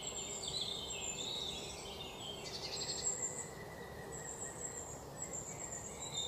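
Birds chirping in short, high calls, with a brief trill about two and a half seconds in, over a faint steady insect tone and low background hiss.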